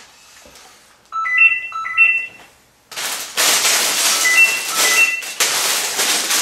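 A phone ringing in the background with paired electronic beeps, heard about a second in and again a few seconds later. From about three seconds in, loud rustling and crinkling of plastic bags full of Lego pieces being handled covers it.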